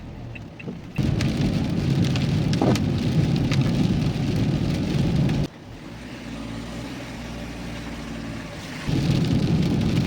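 Car driving in heavy rain, heard from inside the cabin: a steady hiss of rain and wet-road tyre noise over a low engine hum. The level jumps up and down abruptly a few times.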